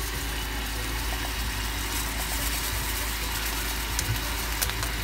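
Steady rushing of a lit gas stove burner under a small saucepan of boiling water, with a low rumble and a faint hiss.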